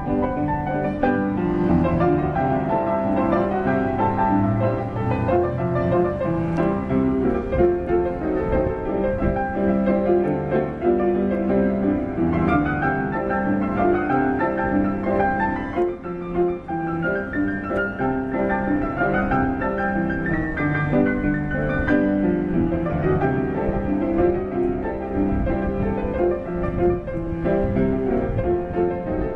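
Piano music, with quick runs of rising notes.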